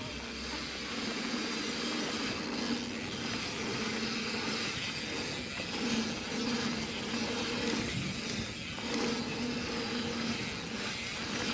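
Mountain bike rolling fast down a dirt trail: a steady rush of riding noise, with a low hum that fades in and out.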